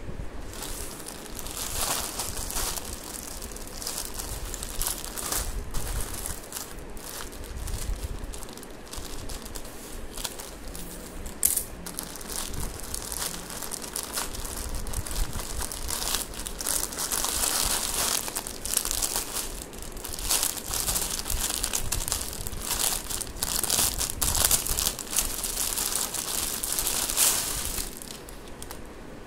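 Plastic courier mailer bags and wrapping being handled, torn open and crumpled by hand: irregular crinkling and rustling of thin plastic, busier in the second half, with one sharp click a little under halfway through.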